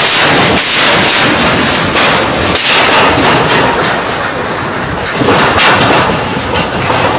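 Large container-depot fire heard at close range: a loud, continuous rushing noise broken by repeated sharp cracks and bangs.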